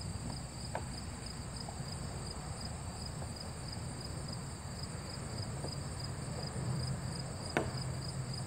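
Steady high chirring of insects in the grass, with small regular pulses, over a low background rumble. A single sharp knock sounds near the end, the loudest moment.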